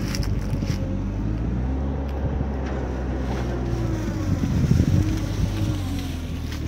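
Heavy vehicle's diesel engine running steadily, its pitch rising and falling once about halfway through.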